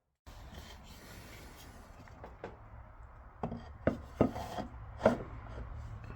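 Wood being handled: light rubbing and scraping, then four sharp wooden knocks in the second half, over a low steady hum.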